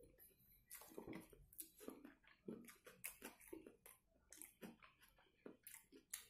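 Faint chewing of a mouthful of chicken cheeseburger, heard as soft, irregular mouth clicks several times a second.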